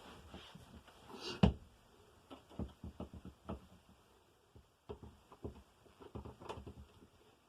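Scattered light clicks and taps of objects being handled, with a louder knock about one and a half seconds in.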